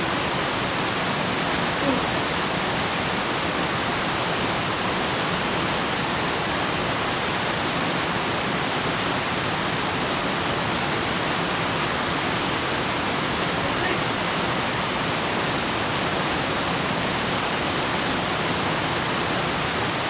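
Steady, even rush of a waterfall pouring in several strands over a rock ledge into a pool.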